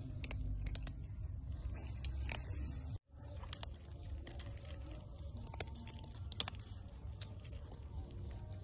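Two kittens crunching dry cat kibble, with irregular sharp clicks of chewing and bites. The sound drops out for an instant about three seconds in.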